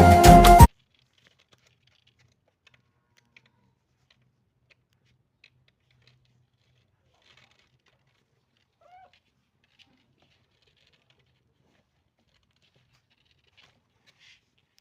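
Background music cuts off under a second in, leaving near silence with faint light ticks and one brief, faint kitten mew about nine seconds in.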